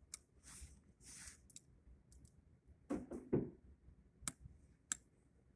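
Quiet handling of a .22 revolver and its cartridges between strings of fire: a few sharp clicks and two duller knocks about three seconds in.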